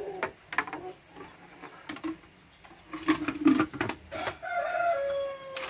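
Hollow plastic knocks and taps from a chicken waterer jug and cup being handled, loudest a little past halfway. Near the end a rooster crows, one long call falling in pitch.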